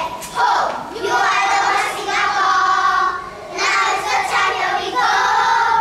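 A group of young children singing a cheer song together in unison, in a few long held phrases with short breaks between them.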